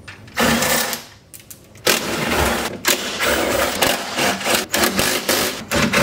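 Ryobi cordless drill spinning the bolts on a bucket seat's side-mount bracket to change the seat's tilt: a short run, then after a pause a longer run of several seconds.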